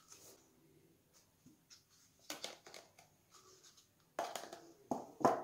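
Small plastic cups being handled and set down into a clear plastic box: a few scattered light clicks, then short bursts of plastic knocking and rustling, the loudest near the end.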